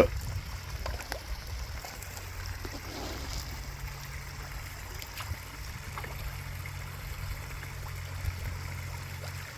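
Water trickling and splashing steadily from a backyard pond waterfall, with a steady low hum underneath.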